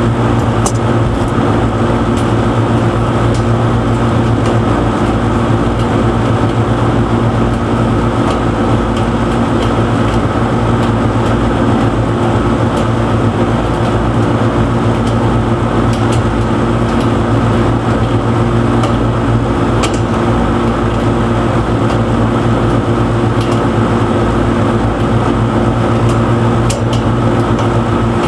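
Steady machinery hum made of several steady tones, with a few faint metallic clicks from pliers working at the fan motor's mounting bolts and wires.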